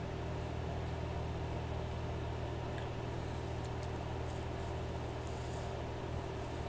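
A steady low hum with an even hiss over it, with a few faint clicks about three seconds in.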